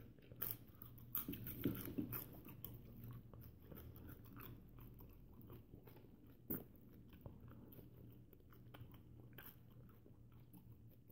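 A person chewing a whole banana, peel and all: faint wet chewing with small clicks of the mouth, busiest in the first three seconds and sparser after, with one sharper click about six and a half seconds in.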